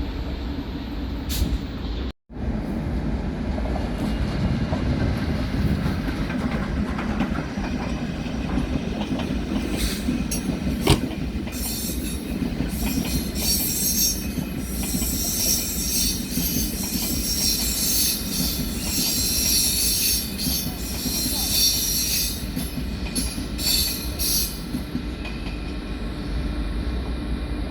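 Rail vehicle rolling past on the track with a steady low rumble and wheel-on-rail clatter, and a high-pitched wheel squeal from about twelve to twenty-five seconds in. The sound drops out briefly about two seconds in.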